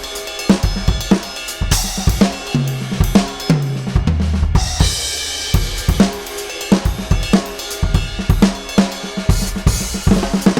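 Sampled acoustic drum kit (Addictive Drums 2) played live from an EFNOTE 5 electronic drum kit: a kick, snare and hi-hat groove. About two and a half seconds in, a tom fill steps down in pitch to the floor tom, then a crash cymbal rings out.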